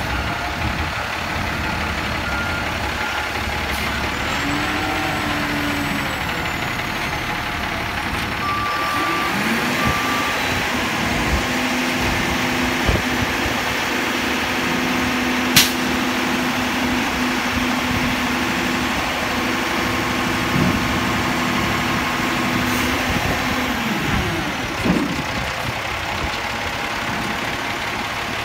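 Diesel engine of a Labrie Wittke front-load garbage truck revving up and holding steady high revs for about fourteen seconds, as when the hydraulic lift arms are raised, then dropping back to idle. Two short beeps sound just before the revs rise.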